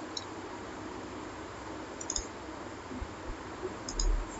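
A few computer mouse clicks, single and in pairs, over a steady faint hiss, with a soft low thump near the end.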